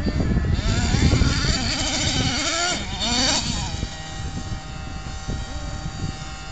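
Small glow-fuel engine of a radio-controlled nitro monster truck revving up and down in quick bursts as the truck drives over rough dirt, then holding a steady buzzing note for the last couple of seconds. A low rumble sits under it in the first few seconds.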